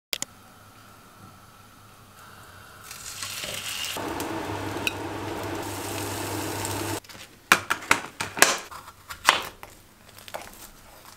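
French toast sizzling in a frying pan, louder from about three seconds in. Then, after a cut, a knife cutting through the toast and knocking several times on a wooden cutting board.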